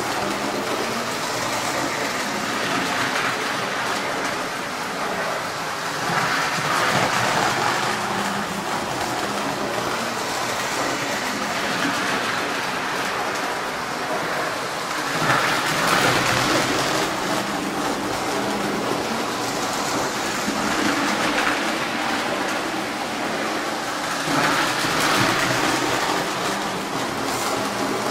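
Lionel postwar O-gauge electric toy train running laps on three-rail tubular track: a steady rushing rumble of its motor and steel wheels, swelling three times as it comes round close.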